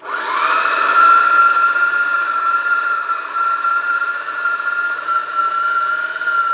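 Food processor motor spinning up with a quickly rising whine, then running steadily at full speed as it chops pecans and coconut flakes into a cookie dough.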